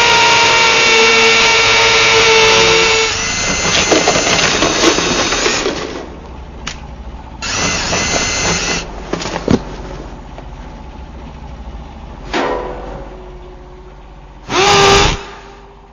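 DeWalt power drill running at full speed with a steady whine, then biting into a concrete wall with a rougher sound for a few seconds before stopping. It then runs in three shorter bursts, the last and loudest near the end.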